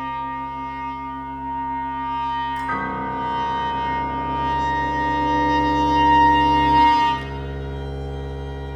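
Contemporary chamber music for clarinet, violin, double bass, guitar and piano playing long held notes. A new cluster of sustained tones enters about three seconds in, grows louder, and breaks off suddenly about seven seconds in, leaving a quieter low held layer.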